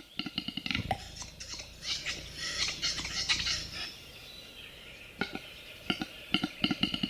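Male capercaillie's display song: a run of dry clicks that speeds up, a pop about a second in, then a scratchy, wheezing phrase. A new run of clicks starts about five seconds in.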